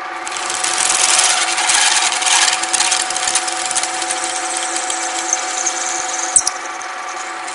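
Drill press running with a 33/64-inch twist drill boring out a damaged half-inch-fine threaded hole in a metal plate, enlarging it for a thread-insert tap. A steady motor hum runs under a loud cutting noise that is strongest for the first few seconds as the bit cuts away the old thread, then lighter. A single sharp click comes near the end.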